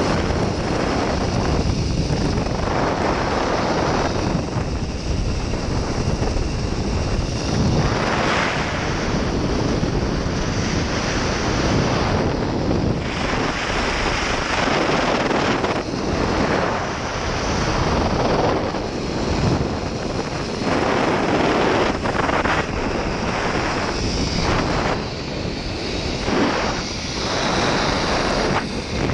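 Wind rushing over the camera microphone on a fast zipline ride: a loud, continuous rush that surges and eases every second or two.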